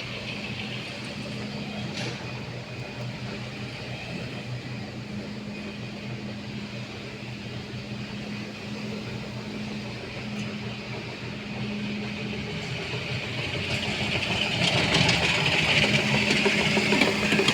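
Floor-scrubbing machine running with a steady motor hum; a higher hiss swells louder over the last few seconds.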